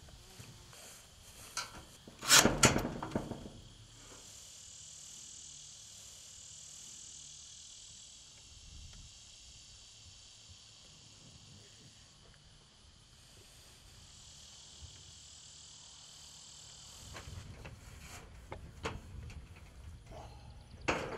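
Insects droning steadily at a high pitch in a grass field. A loud, brief clatter comes about two seconds in, and near the end the knocks and rattles of corrugated steel panels being handled on the feeder frame.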